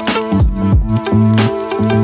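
Background music with a steady beat: a kick drum about twice a second under bass and melody notes.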